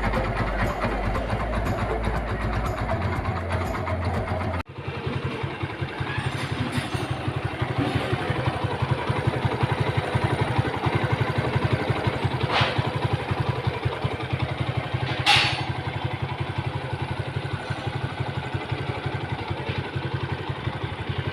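Suzuki Gixxer's single-cylinder engine idling evenly after an engine repair, its earlier harsh noise and white smoke problem cured, the sound now much improved. The recording cuts once about a quarter of the way in, and two short sharp noises come later.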